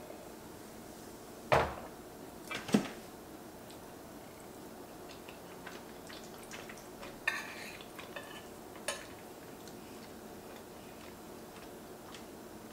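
Tableware sounds: a wine glass set down on the table and a metal spoon clinking and scraping in an enameled pan of pasta shells. Two loud clinks come about one and a half and nearly three seconds in, then lighter clinks and a brief scrape around seven to nine seconds in.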